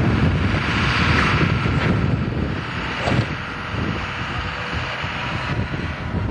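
Heavy construction machinery engine running steadily, a continuous rumble with a hiss above it that eases off about five and a half seconds in.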